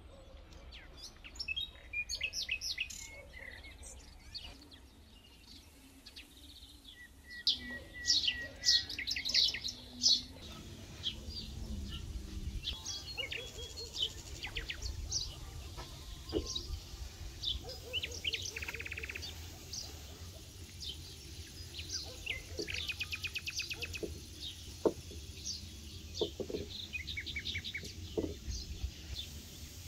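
Wild songbirds singing and chirping: many short high calls, with a few rapid trills, the loudest cluster about a third of the way in, over a low steady rumble.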